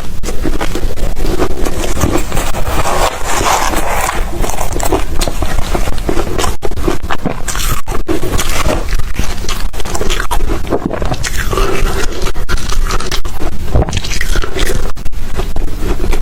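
Close-miked crunching and chewing of ice: a loud, continuous run of crackling crunches with many sharp cracks.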